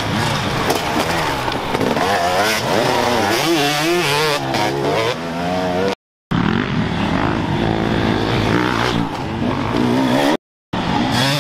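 Dirt bike engines revving hard, their pitch rising and falling again and again with throttle and gear changes. The sound drops out completely twice, briefly, about six and ten seconds in.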